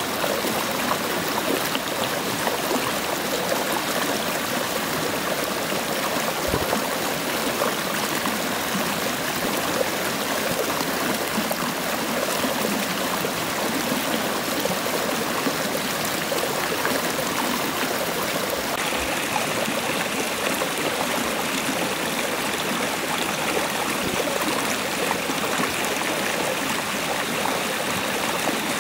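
Steady rush of a nearby river and waterfall, an even flowing-water noise with no pauses; its tone brightens slightly about two-thirds of the way through.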